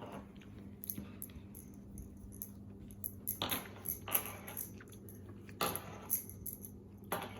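Hands working homemade play dough on a plate with a cookie cutter: quiet handling with a few short knocks and clicks, the clearest starting about three and a half seconds in.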